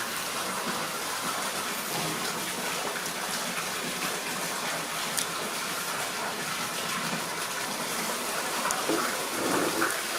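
Steady rush of running water, like a tap running into a basin or tub, with a short higher-pitched sound near the end.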